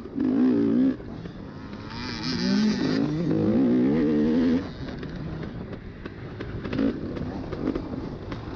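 Dirt bike engine heard from on board, revving up and down with the throttle: loud in the first second and again from about two to four and a half seconds in, then running quieter.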